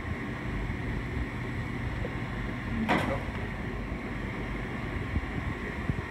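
Sunnen MBB-1660-K honing machine running at about 800 RPM, a steady hum with a faint high whine from its 1/2 hp spindle motor and belt drive. A single sharp knock about three seconds in.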